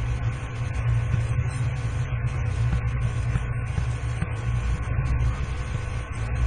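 Steady low rumble with faint steady high tones over it, unchanging throughout: background hum picked up by the microphone.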